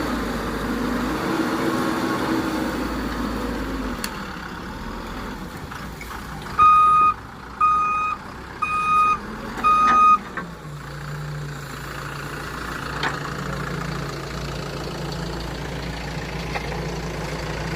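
Diesel engines of heavy earthmoving machines running, with a backup alarm sounding four loud beeps, about one a second, a little before halfway through. After the beeps, a steadier, deeper engine note.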